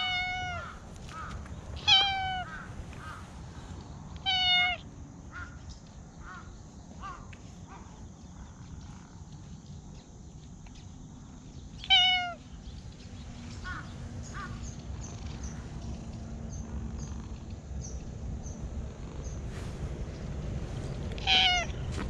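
Ginger-and-white cat meowing in short calls, five times: near the start, about two and four and a half seconds in, about twelve seconds in, and near the end. Faint high bird chirps sound between the calls over a low steady rumble.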